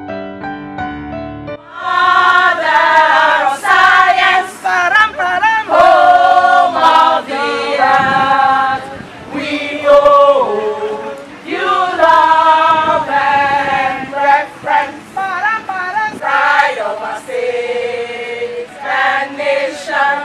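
Music: a few keyboard notes, then a choir of voices comes in singing loudly about two seconds in and carries on.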